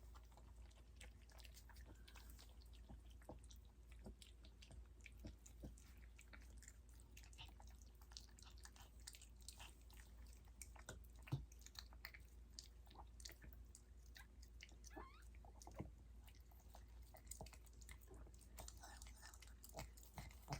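Faint, wet chewing and licking by a Yorkshire terrier mother working over her newborn puppy: a steady scatter of small irregular smacks and clicks.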